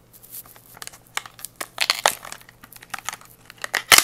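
Lipstick packaging being handled and opened by hand: irregular crinkling and crackling rustles, loudest about two seconds in and again just before the end.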